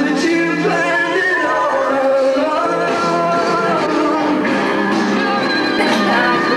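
Music with singing: held, sustained notes over instruments, playing steadily throughout.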